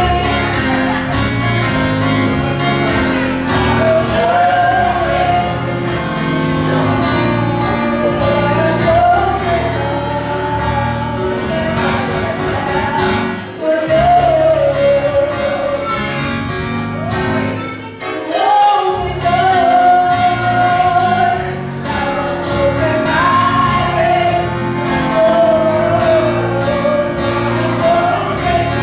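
Gospel choir singing with instrumental accompaniment, male and female voices together.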